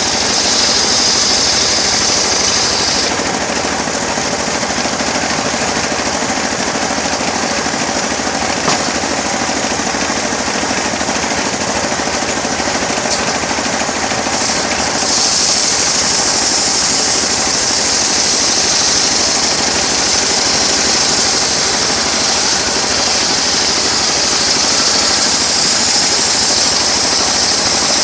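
Homemade engine-driven sawmill running steadily while sawing teak, with a fast rattling engine note. A higher hiss sits over it for the first three seconds and comes back about halfway through for the rest.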